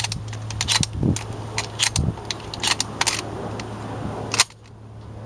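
A series of sharp mechanical clicks and clacks, about a dozen over four seconds, over a steady low hum; the clicking stops after one louder click about four and a half seconds in.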